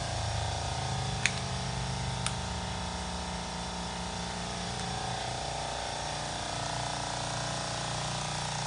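A steady mechanical hum made of several held tones, with two light, sharp clicks in the first few seconds.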